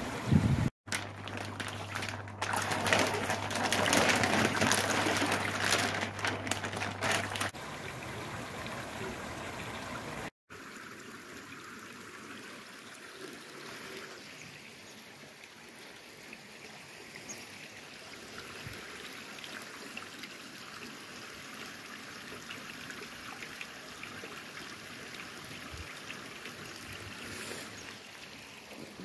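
Water trickling and splashing steadily down a small rock waterfall into a garden koi pond. In the first several seconds a louder noise with a low steady hum covers it, then stops.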